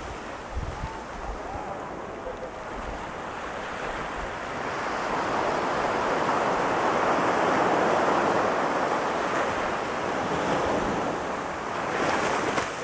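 Ocean surf breaking on a sandy beach: the rush of a wave swells over a few seconds to a peak about halfway through, then eases, with a brief hiss near the end. Wind buffets the microphone with low rumbles.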